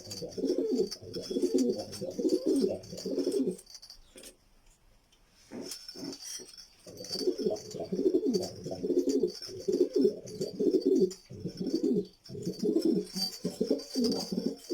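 Domestic pigeons cooing, several overlapping, with a lull of a few seconds about four seconds in before the cooing picks up again.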